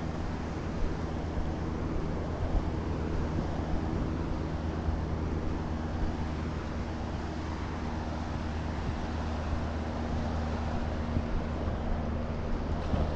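Steady wind on the microphone mixed with the wash of small surf on a flat sandy beach, with a faint low steady hum underneath.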